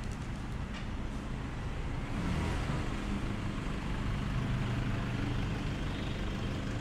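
Street traffic: a motor vehicle's engine running close by, with a steady low hum that gets louder about two seconds in.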